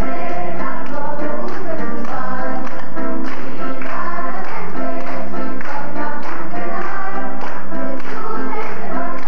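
A small group of children singing a song in unison, accompanied by an electronic keyboard playing chords and bass.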